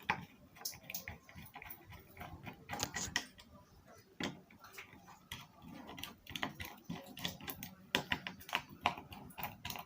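Screwdriver turning out the small screws that hold the cap of an electric water heater: a run of small, irregular clicks and light scrapes.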